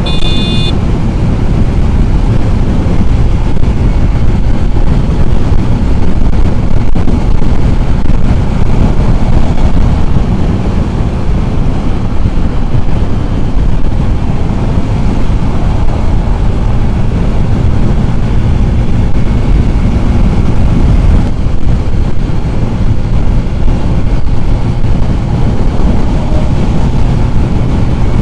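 Heavy wind blast on the microphone of a Yamaha FZ 2.0 motorcycle riding at high speed, a loud, steady rush of wind and riding noise. A brief high-pitched tone sounds in the first second.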